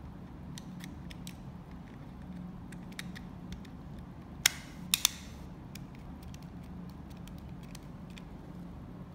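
Small plastic clicks and ticks as a needle is fitted by hand into a plastic nozzle. There is a sharp click about four and a half seconds in and a quick double click half a second later, over a steady low hum.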